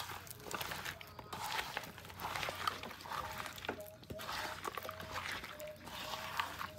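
Hand squeezing and stirring sliced carrots through thick batter in a metal bowl: wet squelching and sloshing in short bursts, about one a second.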